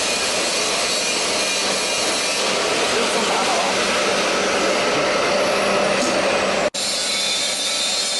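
Heat-shrink tunnel running: a steady rushing noise from its hot-air blowers and mesh belt conveyor, with a low hum underneath. The noise breaks off for an instant about two-thirds of the way through, then resumes.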